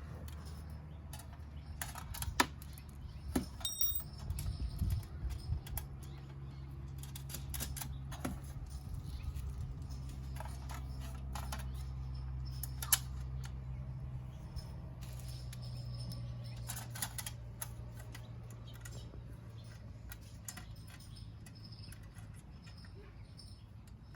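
Scattered light clicks and rattles of screws and an Allen wrench as a license plate is fastened to a bumper-mounted bracket, over a steady low hum. The clicks come thickest a few seconds in.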